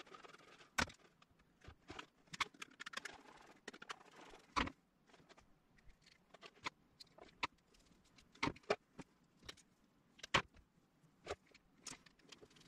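Irregular clicks, taps and light knocks from small objects being handled, with short stretches of soft scraping between them.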